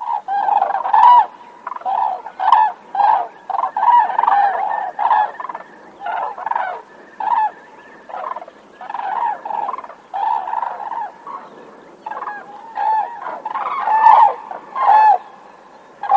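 Grey crowned cranes honking: a long run of short, repeated honks, two or three a second, louder near the start and again about fourteen seconds in. A honk rather than the bugling trumpet of other crane species.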